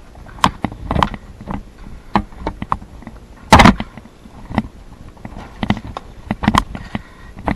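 Irregular sharp clicks and knocks, loudest in a short noisy burst about three and a half seconds in.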